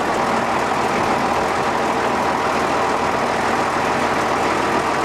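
Case 930 tractor engine running steadily under way, heard close up from the driver's seat, loud enough to drown out a voice.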